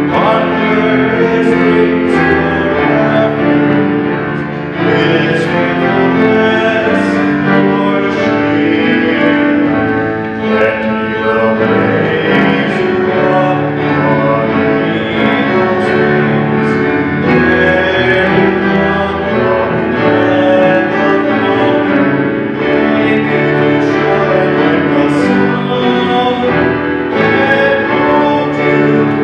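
Church music played on piano, with a voice singing over it.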